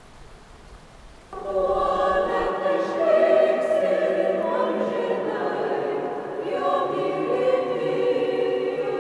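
A heavenly choir sting: voices singing a held chord that starts suddenly about a second in and carries on without a break.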